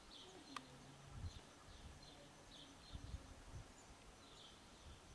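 Near silence: faint outdoor ambience with soft, high chirps repeating every half second or so, and a single sharp click about half a second in.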